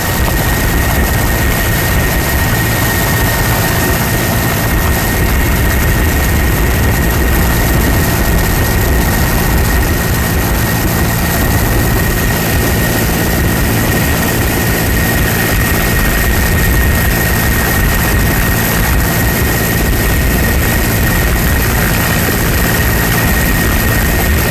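Steady engine drone with a low hum and a constant thin whine, unchanging throughout.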